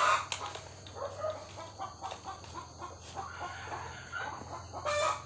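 Chickens clucking, a string of short scattered clucks, with a louder cluck or call at the start and another near the end.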